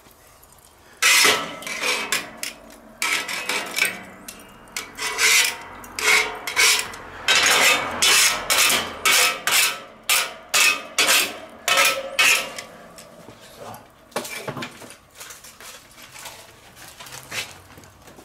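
Metal tongs scraping back and forth across a cast-iron griddle plate on a kettle grill, clearing off toasted-bun crumbs. Quick rasping strokes start about a second in and run steadily until a few seconds before the end, then give way to a few fainter scrapes.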